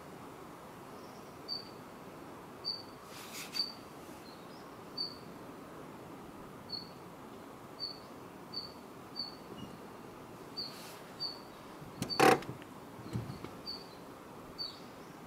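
A small bird giving short, high chirps, repeated every second or so over a steady outdoor hiss. A single brief, loud knock about twelve seconds in.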